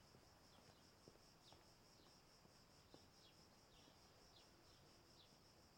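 Near silence: faint garden ambience with a steady, high insect drone and faint short chirps about every half second or so.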